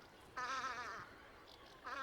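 Velvet scoter calling: a short, wavering, buzzy call of about half a second, with the next call beginning near the end, part of a series repeated about every second and a half.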